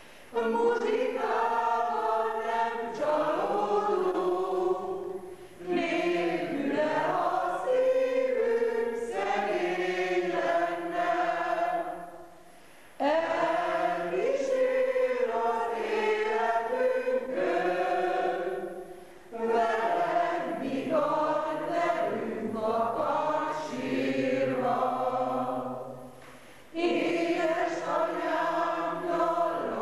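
Amateur mixed choir, mostly women's voices, singing a song together in long phrases, with a brief breath pause between phrases about every six to seven seconds.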